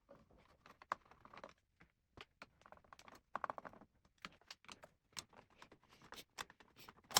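Faint, irregular small clicks and light metallic ticks of a screwdriver and small screws being worked on inside a cassette deck chassis, with a short ringing clink about halfway through.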